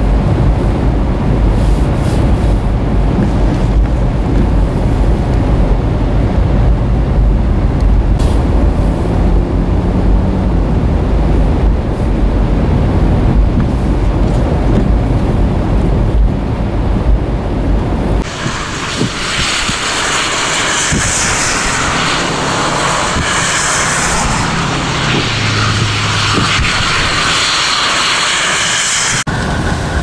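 Steady low rumble of a vehicle's engine and tyres on a slushy, snow-covered road, heard from inside the vehicle. About 18 seconds in it cuts abruptly to a loud, even hiss of blizzard wind and blowing snow.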